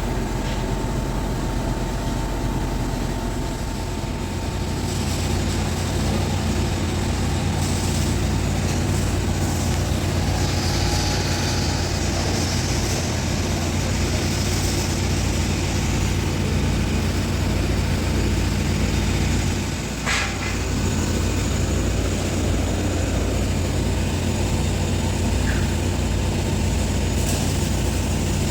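A steady low engine rumble that runs on without change, with a short dip and a click about twenty seconds in.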